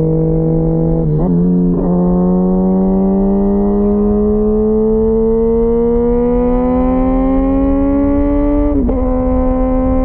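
2004 Kawasaki ZX-10R inline-four through a full Sato titanium exhaust, under way. The engine note breaks briefly twice about a second in, then climbs steadily as the bike accelerates. Near the end it dips briefly and settles at a steady, slightly lower pitch, as a gear change would.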